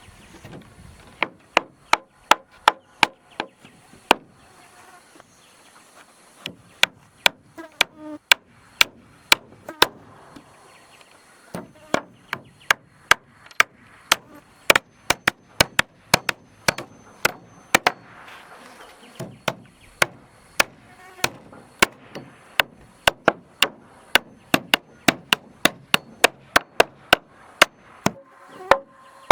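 Hammer striking wooden planks again and again, sharp blows in quick runs with short pauses between, as the wood floor boards are nailed in place.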